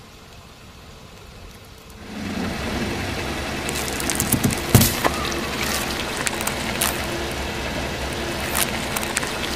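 A car's engine and tyres start up about two seconds in and keep running steadily. Sharp cracks and crunches sound several times as the tyres roll over and crush objects.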